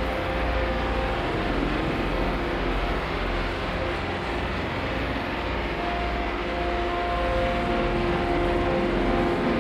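Ambient drone soundtrack: a steady rumbling wash of noise with a few long held tones that fade in and out, the tones thinning out midway and returning stronger near the end.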